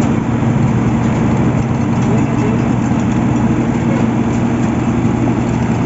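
Heavy diesel engine of road construction machinery running at a steady speed, a constant low hum with no change in pitch.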